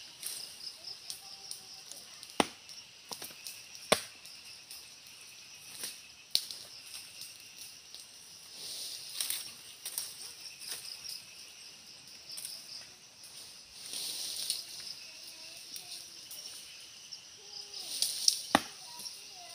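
Machete (bolo) chopping into the trunk of a thin tree. Sharp single strikes come several seconds apart, then a quicker run of chops near the end.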